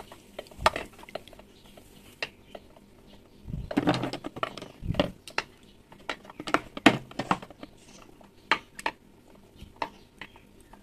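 Wet hand-handling of duck eggs soaked in vinegar in a glass bowl: squelching of the loosened membrane and foam, with a series of light clicks and taps as the eggs knock the bowl and are set into a plastic box. A longer wet, rustling stretch comes about four seconds in.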